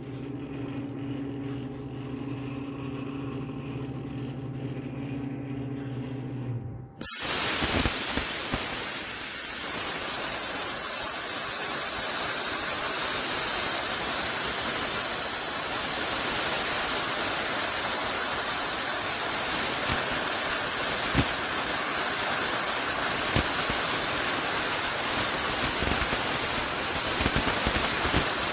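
A steady low hum, then about seven seconds in a CNC plasma cutter's torch fires and the loud, steady hiss of the plasma arc begins as it cuts a plate.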